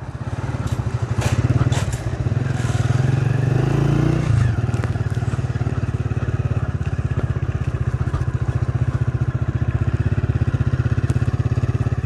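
Vehicle engine running steadily as it drives along, its low hum pulsing rapidly. The engine pitch drops about four seconds in. A few knocks and rattles come near the start.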